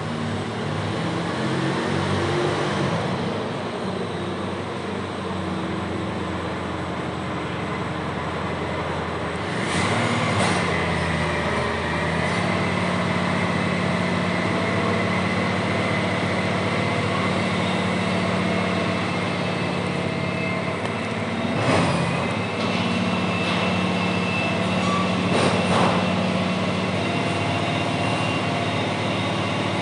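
Garbage truck running during a pickup, a steady engine drone with a high whine that comes in about a third of the way through. Sharp knocks and clanks stand out three times.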